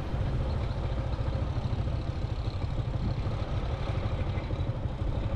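A vehicle's engine running steadily while on the move along a road, under a heavy low rumble, with a faint steady hum over it.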